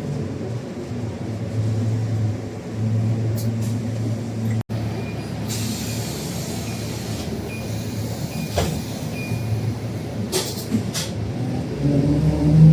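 Scania K310UD double-decker bus's DC9 diesel engine running low and steady, with a short run of faint high beeps in the middle and a few clicks. It picks up revs and gets louder near the end.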